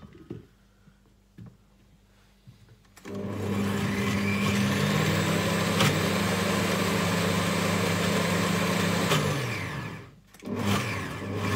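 Blender jar mounted on a stand mixer's base, blending a thick chickpea mixture for hummus. After a few light clicks as the lid goes on, the motor starts about three seconds in and rises in pitch as it speeds up. It runs steadily, winds down, then starts again briefly near the end.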